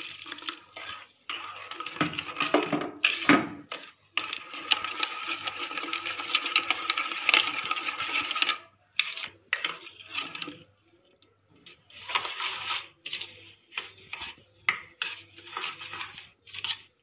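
A spoon stirring curd in a bowl, clinking and scraping against the bowl's sides, with a longer stretch of steady stirring in the middle.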